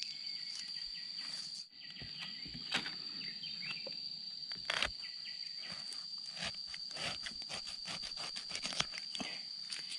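A steady high-pitched insect drone, with scattered short knocks and crackles of hand work in the undergrowth, thickest in the second half.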